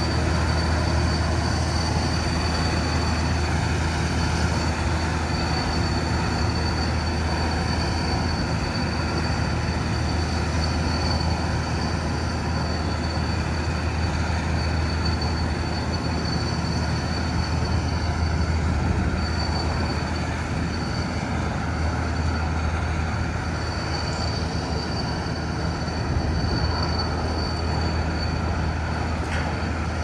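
Aircraft turbine engine running steadily: a constant high whine over a loud low drone, with no change throughout.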